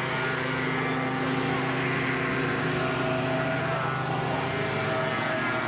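Hovercraft engines and propeller fans running in a steady drone.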